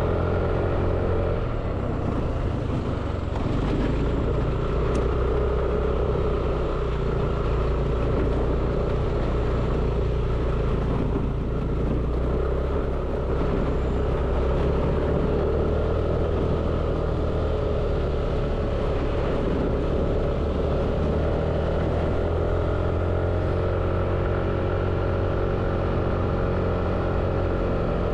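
FPV drone's motors and propellers whirring steadily, their pitch drifting slightly up and down with throttle.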